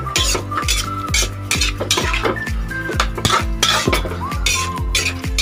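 Metal spatula scraping and clanking against an aluminium wok as vegetables are stirred, in repeated strokes, over background music with a steady beat.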